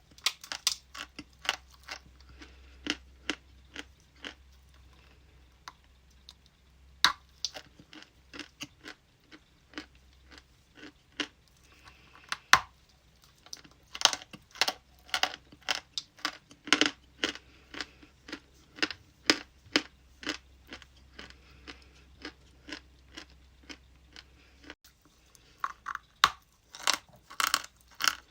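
Ice being bitten and chewed close to the microphone: irregular sharp crunches in quick clusters, busiest in the middle and again near the end.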